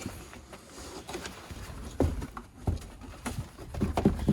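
Irregular soft knocks and thumps with handling noise, from hands working the headliner board and fabric; the clearest knocks come about two seconds in and in a cluster near the end.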